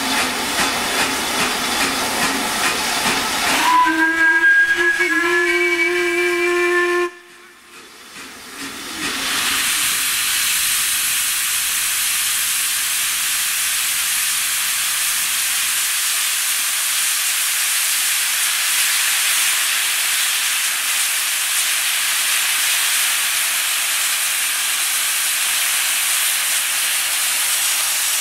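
Steam locomotive 6233 Duchess of Sutherland standing with steam hissing. A few seconds in, its whistle sounds one deep, multi-toned blast lasting about three seconds. After a brief lull a loud, steady hiss of steam sets in and carries on, blowing out low at the front of the engine, where the cylinder drain cocks are.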